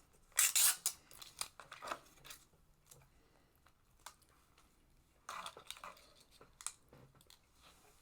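Crinkly tearing and rustling of a small strawberry jam packet being opened, in short bursts: the loudest about half a second in, another near two seconds, and a third a little after five seconds.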